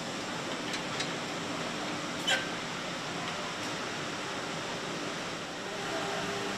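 Factory-floor noise at an engine assembly station: a steady hum of machinery and air, with a few light metal clicks and one sharper clink about two seconds in. A low machine hum swells slightly near the end.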